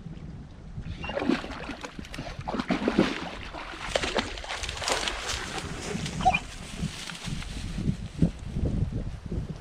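German shepherd dog in lake water: quick, irregular splashing and lapping, starting about a second in.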